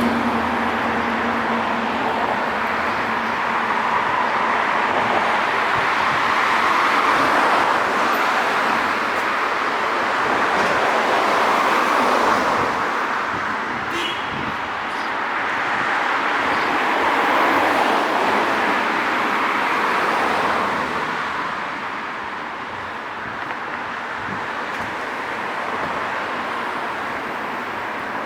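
City street traffic: cars passing one after another, the tyre and engine noise swelling and fading about five times, then easing off near the end.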